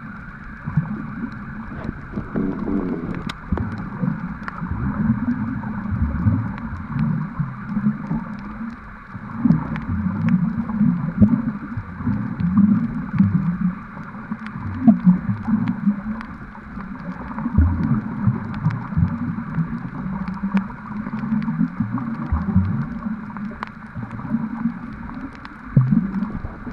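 Muffled underwater noise picked up by a submerged camera: low, uneven water sloshing and rumbling that swells and fades every few seconds, with faint scattered clicks.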